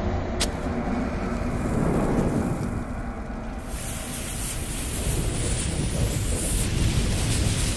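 Intro sound effect of a lit bomb fuse: a low rumble with a sharp click near the start, then the fuse hissing from about four seconds in.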